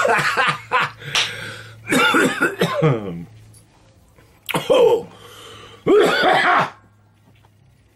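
A man coughing hard in fits: a run of coughs over the first three seconds, then two more bouts about four and a half and six seconds in. It is a smoker's coughing fit after inhaling cannabis smoke.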